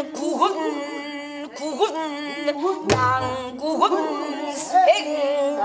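A woman singing a melismatic pansori phrase in a full, wavering voice with bending ornaments, and one low buk drum stroke about three seconds in.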